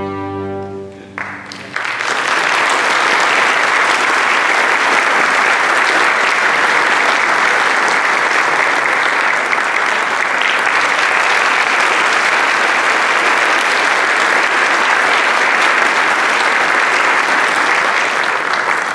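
A string orchestra's final chord of violins, violas, cellos and basses is held and cut off, then the audience applauds steadily for about seventeen seconds.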